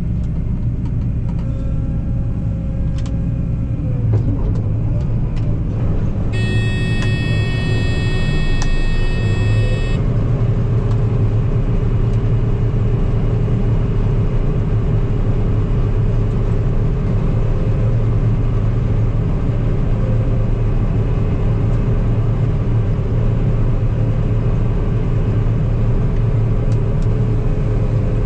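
Combine harvester engine running steadily under load. About six seconds in, a high electronic tone sounds for a few seconds. After that the drone gets a little louder and fuller.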